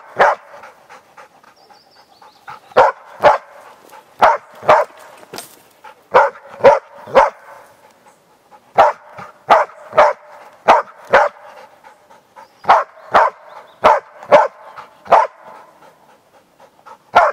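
East Siberian Laika barking at a wild boar it is holding at bay: about twenty short, sharp barks in runs of two to six, about two a second, with brief pauses between the runs.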